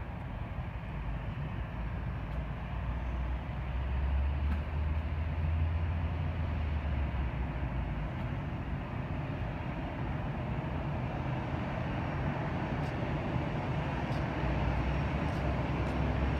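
Airbus A319's jet engines running at taxi idle as the airliner approaches the gate: a steady rumble and hiss, swelling lower and louder about four seconds in and again near the end.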